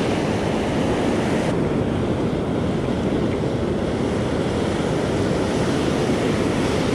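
Ocean surf breaking and washing up the beach, with wind rumbling on the microphone; a brighter hiss of washing water for about the first second and a half.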